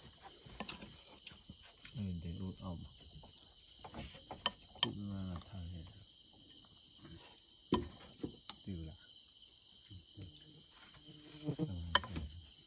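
Steady chorus of crickets and other night insects, a high continuous trilling. Quiet voices talk briefly a few times, and a few sharp clicks cut through.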